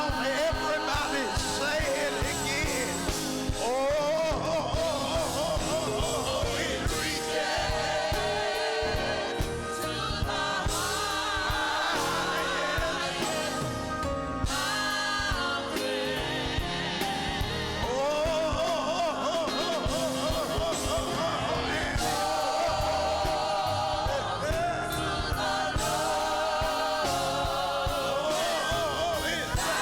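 Gospel choir singing with a band, sung lines with heavy vibrato over a steady beat.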